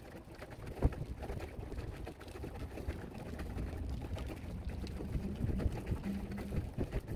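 Low rumbling wind noise on the microphone, with a single sharp knock about a second in.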